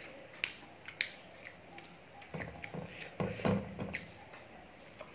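Close-miked eating by hand from a stainless steel tray: a handful of sharp clicks and scrapes as fingers scoop food against the metal, the loudest about a second in, with chewing and mouth sounds in between.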